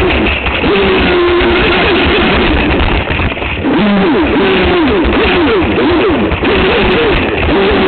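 Aquacraft SV27 RC speedboat heard from its onboard camera: the motor's whine holds steady, then swoops rapidly up and down with throttle and wave hits, over a loud rush of water and wind noise.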